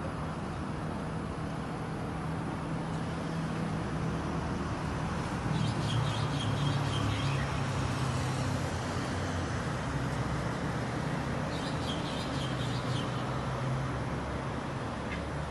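Steady low rumble of road traffic, with a small bird singing two short runs of high, quick notes, about five seconds in and again around twelve seconds.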